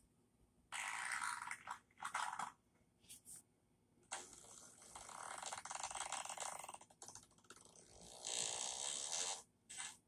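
A series of fart noises: a few short ones, then a long one lasting about three seconds, and another near the end.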